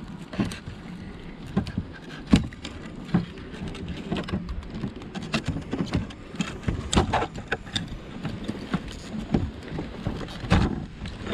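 Irregular clicks, taps and knocks of hands and tools working on a fuel pump assembly while trying to unplug its electrical connector, with a sharper knock about two seconds in and another near the end.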